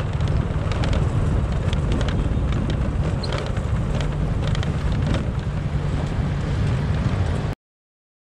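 Wind buffeting the microphone of a moving motorcycle, with the bike's engine and road noise underneath. It cuts off suddenly near the end.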